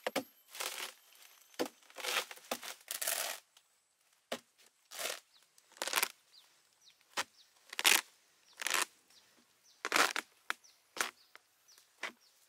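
Fibrous sago palm trunk being split and pried open with a long iron bar. There is an irregular string of sharp tearing and cracking strikes, one or two a second, as the bark and pith rip apart.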